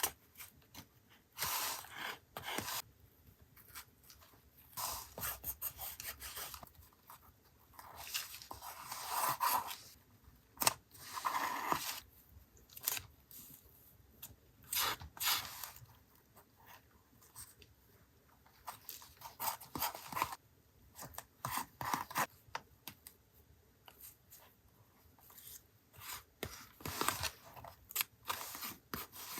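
Paper collage sounds: scissors snipping paper, with paper rubbing, rustling and tearing in short, irregular strokes separated by quiet gaps.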